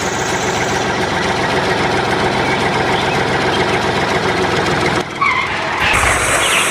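Vehicle engine running steadily at idle. About five seconds in it dips briefly, and a brighter, harsher engine sound takes over near the end.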